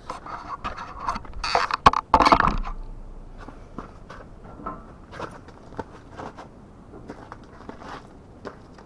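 Handling noises of equipment being set up: a burst of knocks, clatter and scraping, loudest about two seconds in, then scattered light clicks and taps.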